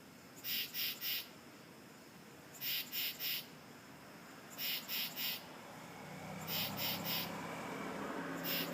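Unidentified animal call: groups of three short, harsh, high-pitched chirps, repeated about every two seconds.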